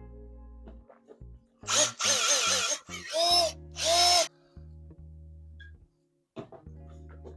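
Three short bursts of a small power-tool motor whirring, each rising and falling in pitch, over a background beat with a steady bass line.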